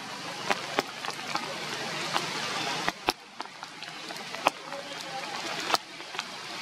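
Rain falling on forest foliage: a steady hiss with scattered sharp drip clicks, a few of them louder.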